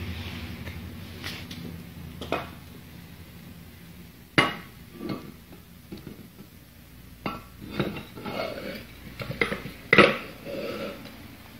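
Metal parts of a bench vise clanking and scraping as the movable jaw's steel slide tube is fitted into the vise body during reassembly: a string of separate sharp, ringing knocks, the loudest about four and ten seconds in.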